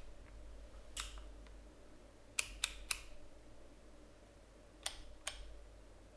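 Canon EOS 5D's mode dial and top-panel buttons being worked, giving about six sharp, separate clicks: one, then three in quick succession, then two more.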